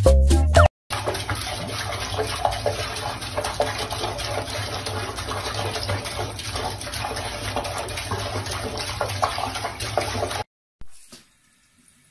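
A brief moment of music that cuts off, then water running steadily from a tap into a sink, cutting off suddenly near the end.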